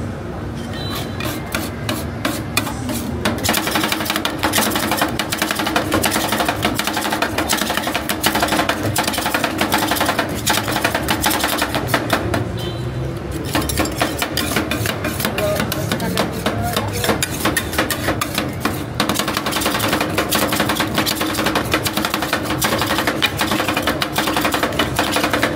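Rapid metallic clacking of two steel spatulas chopping rolled-ice-cream mix on a stainless-steel cold plate as it freezes. It starts about three seconds in, pauses briefly about twelve seconds in, then resumes.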